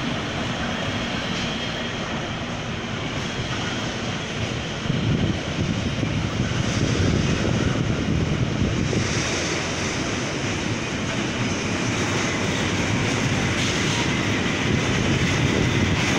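Freight train of loaded tank wagons rolling past behind a diesel locomotive: a steady rumble of wheels on rails with engine noise, growing louder about five seconds in.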